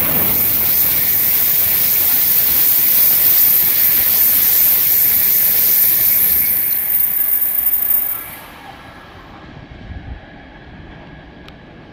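N700-series Shinkansen bullet train passing at about 228 km/h without stopping: a loud, even rushing noise with a strong high hiss. It cuts off abruptly about eight seconds in as the last car goes by, leaving a much quieter background.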